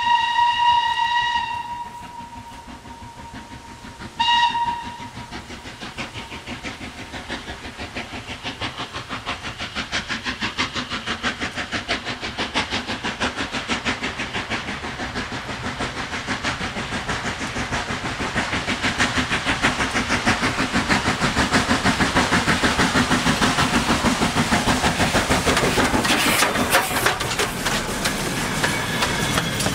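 Steam locomotive hauling a goods train: one long whistle, then a short toot about four seconds in, then its steady exhaust beats grow louder as it works up the line towards the listener and passes close by, with the goods wagons rolling past near the end.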